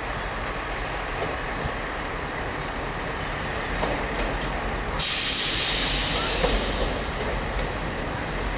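Class 175 diesel multiple unit running slowly into a station platform with a steady low rumble. About five seconds in comes a sudden loud hiss of released air from the train's brakes, dying away over two seconds or so.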